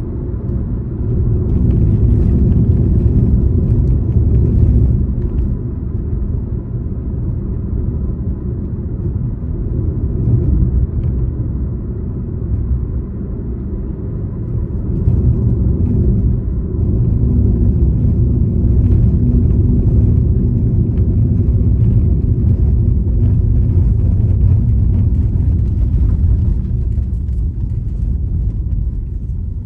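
Car driving on a paved road: a steady low engine and tyre rumble that gets louder about a second in, eases off for a while, then grows louder again about halfway through.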